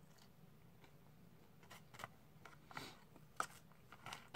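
Faint clicks and scrapes of a plastic fork scooping cheese-covered fries from a cardboard fry container, starting after a quiet second and a half, with one sharper click about three and a half seconds in.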